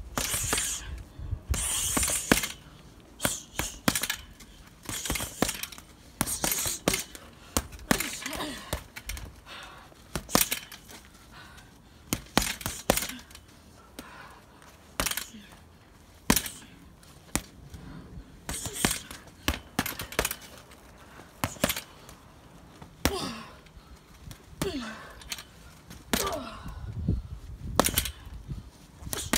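Gloved punches landing on a heavy punching bag: a run of sharp, irregular thuds, often one or two a second.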